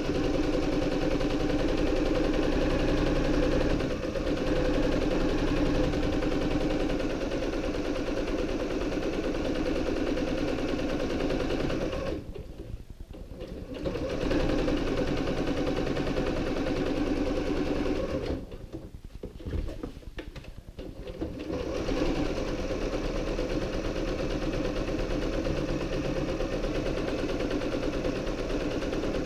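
Electric domestic sewing machine stitching a seam at a steady speed. It stops twice: briefly about twelve seconds in, and for about three seconds a little past halfway, then starts again.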